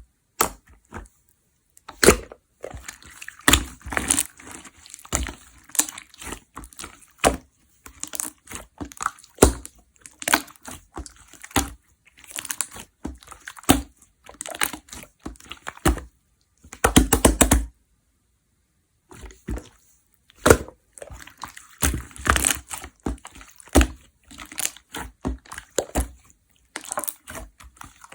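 Clear slime being worked by hand, with irregular crackling pops and clicks and wet squishes. Near the middle comes a loud, dense run of crackling, followed by a second of silence.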